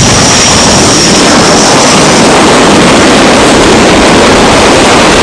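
Loud, steady jet engine roar, with a high whine on top that stops about two seconds in.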